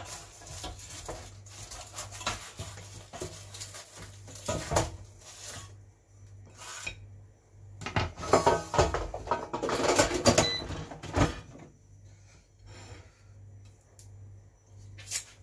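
Kitchen handling sounds: a slotted spatula scraping and knocking against an air fryer basket and a ceramic plate as a toasted sandwich is lifted out, then set down on a wooden worktop. Irregular scrapes and sharp knocks, busiest just past the middle.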